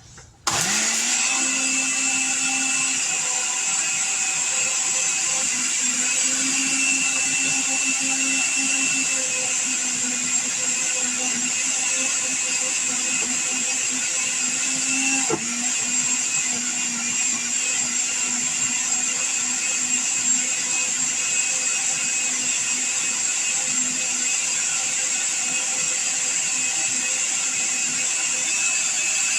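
Electric blender running steadily, pureeing a thick, fairly dry marinade of garlic, onion, ginger and herbs with a little water. It starts about half a second in and dips briefly about halfway through before running on.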